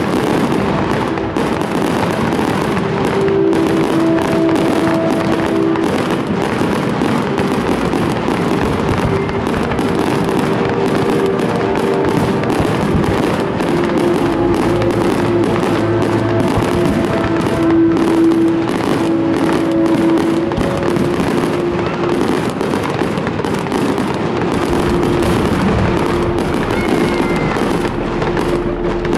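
Aerial fireworks display: a continuous barrage of shell bursts and crackling stars, many bangs overlapping, with music playing throughout in sustained notes.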